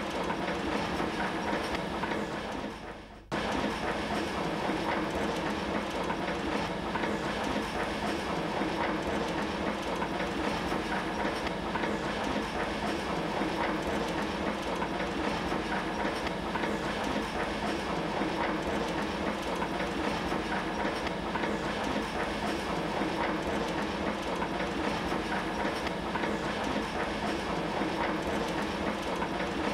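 Cassoli RA C1 toilet-roll wrapping machine running, its cam discs, linkages and chain drive making a steady, rapid mechanical clatter. The sound dips briefly about three seconds in, then goes on unchanged.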